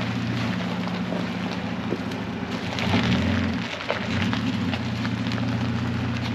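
Toyota Tacoma engine idling through a newly installed MBRP stainless steel dual exhaust, a steady low rumble. About three seconds in the note briefly rises and wavers before settling back to idle.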